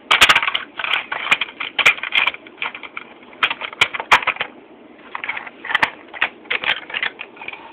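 Red plastic Stunt Racers Mac toy hauler handled on a wooden desk: a fast, irregular run of sharp plastic clicks and clatters.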